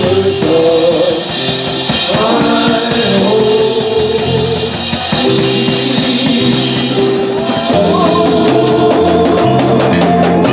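Live bar band playing: male voices singing over electric bass, keyboard and drum kit, with the cymbal strokes getting busier near the end.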